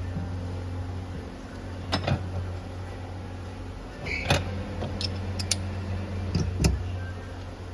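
A handful of sharp clicks and knocks, about four, spread over several seconds above a steady low hum.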